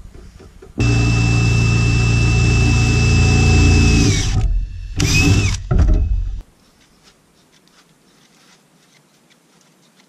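Electric power tool motor running at full speed for about three and a half seconds, a steady high whine that sags in pitch as it winds down, then two short bursts before it cuts off.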